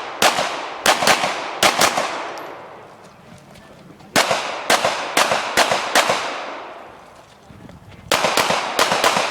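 Pistol fired in quick strings during an action shooting stage: three bursts of four or five sharp shots about half a second apart, with pauses of a couple of seconds between bursts. Each shot has a ringing tail.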